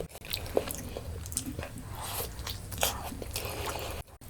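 Close-miked eating sounds: biting and chewing food, with irregular wet clicks and crunches. A steady low hum sits underneath, and the sound stops briefly near the end.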